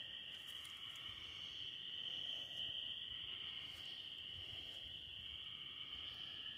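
Faint, steady chorus of night insects, an unbroken high-pitched trill.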